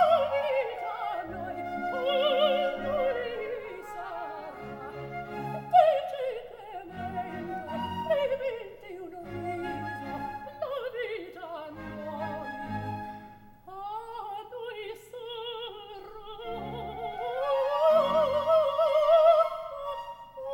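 Coloratura soprano singing an operatic aria over orchestral accompaniment, holding high notes with wide vibrato and, in the middle, a series of quick falling runs about every two seconds.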